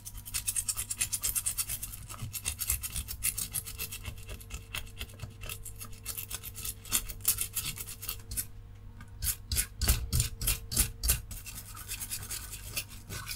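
Stiff-bristled brush scrubbing the solder side of a printed circuit board, cleaning it after desoldering: rapid back-and-forth scratchy strokes, several a second, with a brief pause about eight seconds in.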